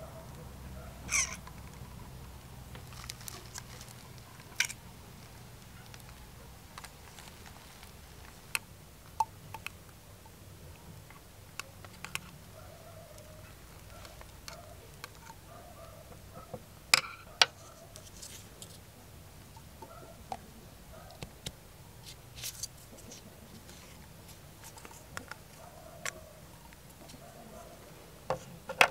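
Scattered clicks and taps from a plastic syringe, a thin metal rod and a plaster mould being handled on a table, with a sharp click about a second in and a close pair of louder clicks past the middle.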